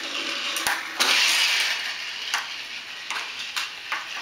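Battery-powered TrackMaster Thomas toy engine's small geared motor whirring on plastic track, louder about a second in and then easing off, with several sharp plastic clicks and knocks from the toy track set.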